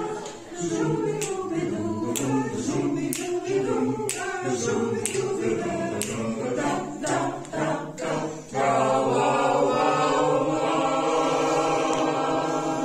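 Voices singing together a cappella as a choir, with a sharp click about once a second through the first part. About two-thirds of the way through, the voices rise into one long, loud held chord.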